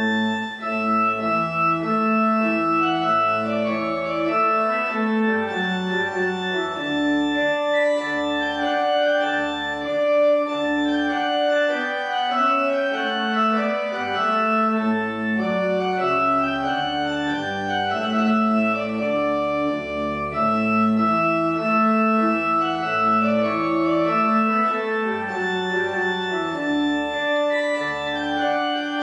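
Church organ playing slow, sustained chords over a bass line that steps from note to note, the notes held without dying away.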